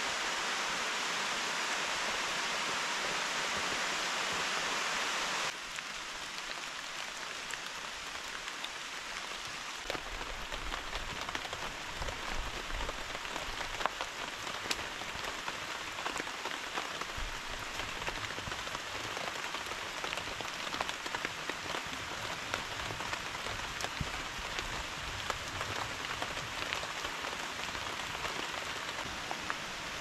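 Steady rain hissing, then, after an abrupt cut about five seconds in, quieter rain with scattered sharp ticks and drips.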